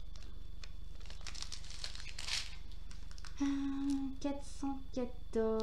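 Small plastic bags of diamond-painting drills crinkling and rustling as they are handled, over a steady low hum. A woman's voice comes in a little past halfway.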